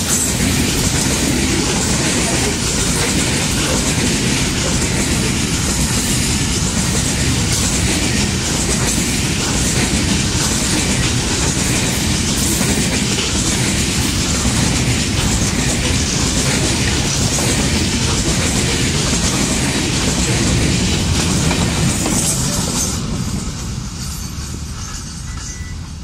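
Goods train of covered box wagons passing close by: a loud, steady running noise of the wagons' wheels on the track, which drops away from about 23 seconds in as the train moves off.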